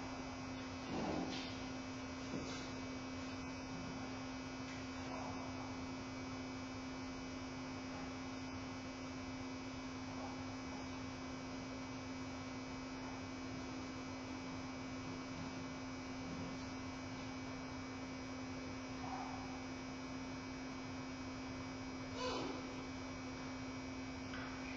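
Steady electrical hum on a webcam microphone feed, one constant low tone with fainter tones above it. A few brief, faint noises rise above it about a second in and near the end.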